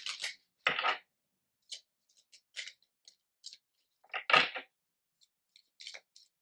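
A deck of oracle cards being shuffled by hand: short, crisp scrapes and flicks of card against card at irregular intervals, with a louder slap of the deck about four seconds in.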